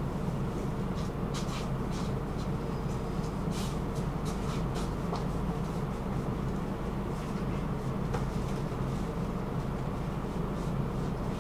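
Tram running, heard from inside the passenger car: a steady low rumble of motors and wheels on the rails, with scattered short clicks and rattles.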